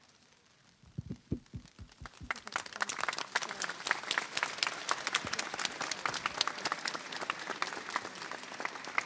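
A large crowd applauding. After a brief hush and a few dull thumps, scattered claps build within a couple of seconds into steady applause.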